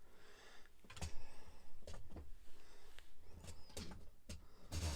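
Plastic Lego Technic model plane being picked up and handled: a scatter of light clicks and soft knocks.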